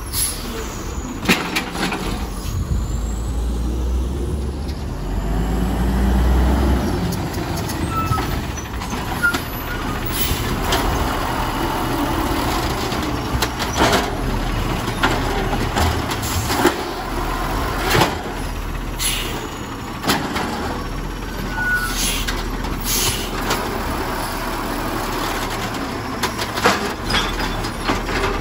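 Natural-gas refuse truck with an Amrep automated side-loader at work: the engine runs with a low rumble that swells around four to seven seconds in, while the hydraulic arm lifts and dumps carts, with about a dozen sharp bangs of carts and arm against the hopper. A hiss of the air brakes comes in as the truck stops between carts.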